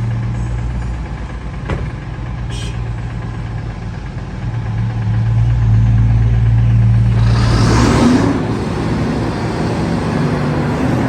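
Heavy machine's diesel engine running, working harder and louder from about four and a half seconds in, with a short click near the start and a burst of hissing noise around eight seconds.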